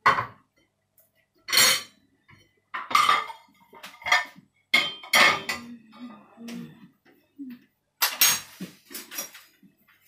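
Ceramic plates and bowls clattering as they are handled and set down, with metal spoon and ladle clinks against dishes and pan, in a string of short knocks.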